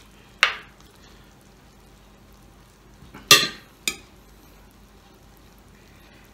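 Metal spoon scraping and clinking against a hot pan of sizzling pork sisig: one sharp scrape about half a second in, then two more clatters a little after three seconds in, over a faint steady sizzle from the pan.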